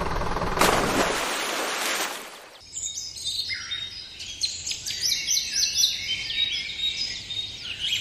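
A steady rushing noise for the first two and a half seconds, then many small birds chirping in quick, overlapping calls for the rest of the time.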